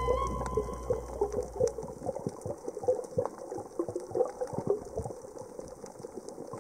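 Underwater sound of a coral reef as heard through the camera: irregular clicking and crackling with some bubbly gurgles. Background music fades out over the first two seconds.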